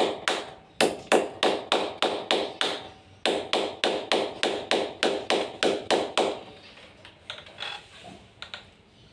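Hammer tapping at the masonry wall around the air conditioner's pipe opening: quick sharp knocks, about four a second, that stop a little after six seconds in, followed by a few fainter knocks.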